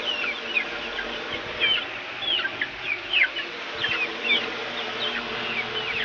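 Three-month-old golden Misri chicks (young desi chickens) peeping: many short, high, falling chirps in quick succession, over a steady hum.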